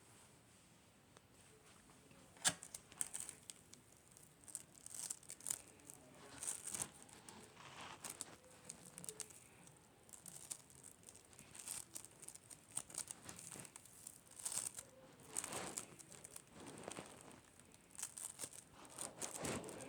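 Slime being squeezed and stretched by hand, giving irregular crackling and popping clicks that start with a sharp click about two and a half seconds in.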